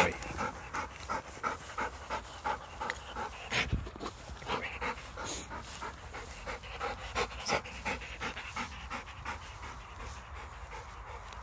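Black Labrador retriever panting hard after a retrieve, a quick, even rhythm of about three breaths a second that softens near the end.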